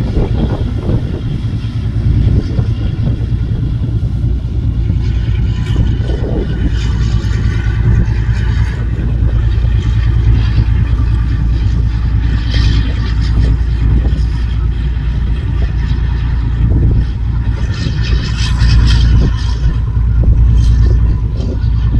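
Boat engines running with a steady, loud low rumble, mixed with the rushing hiss of water wash that swells louder twice in the second half.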